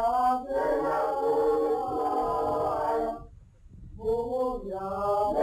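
A group of voices singing unaccompanied in long held notes, breaking off briefly about three seconds in before the singing resumes.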